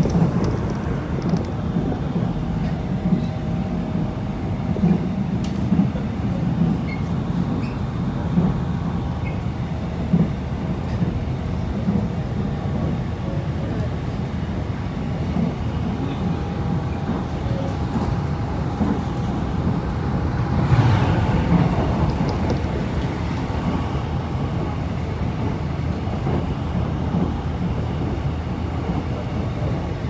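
A moving train's steady running rumble, heard from inside the carriage, with occasional light knocks. About 21 seconds in it swells briefly louder with a falling whine.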